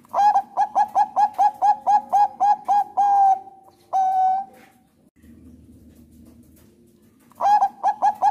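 Zebra dove (Thai perkutut bangkok) singing: a quick run of about a dozen short coos, some four a second, ending in two longer drawn-out notes. A pause follows, then the next run begins near the end.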